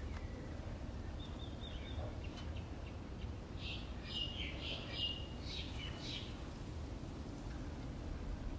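Birds chirping in short high calls: one brief call about a second in, then a run of chirps a few seconds in. Under them is a steady low background rumble.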